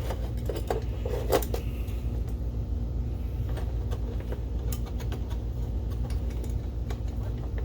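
Projector lamp module being handled and fitted into the housing: a few sharp plastic clicks and knocks in the first couple of seconds, then occasional faint clicks, over a steady low hum.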